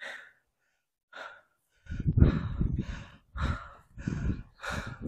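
A hiker breathing hard while climbing: two light breaths, then from about two seconds in a run of quick, loud breaths, about one and a half a second.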